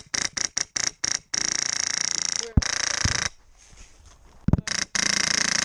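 Airsoft guns firing: a quick run of single shots, then a full-auto burst lasting about two seconds. After a short lull and a thump, another burst starts near the end.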